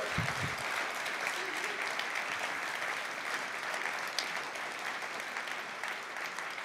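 Audience applauding: many hands clapping in a dense, even patter that eases slightly toward the end.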